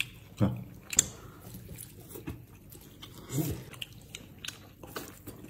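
Quiet eating sounds: scattered light clicks of chopsticks working through a plate of noodles, with soft chewing and mouth noises. The sharpest click comes about a second in.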